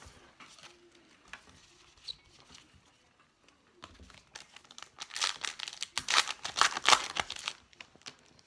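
A pack of baseball trading cards being torn open, its wrapper crinkling and crackling in a dense run over a couple of seconds past the middle, after a few light clicks.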